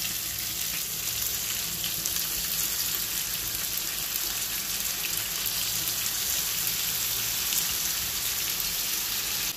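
Chicken pieces sizzling steadily in hot oil in a wok over a gas flame.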